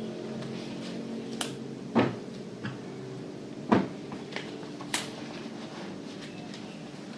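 Household objects being handled during house tidying: a run of separate knocks and clicks, with two louder thumps about two seconds and three and a half seconds in and a sharp click near five seconds, over a steady low hum.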